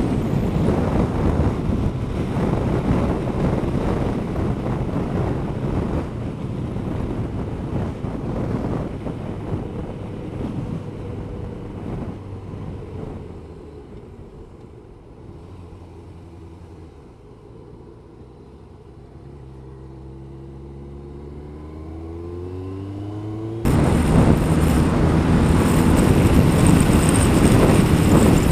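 Wind rush and road noise from a motorcycle at speed, dying away as the bike slows down. The Kawasaki ZZR-1200's engine note then rises as it accelerates, before the sound cuts suddenly back to loud wind rush at speed.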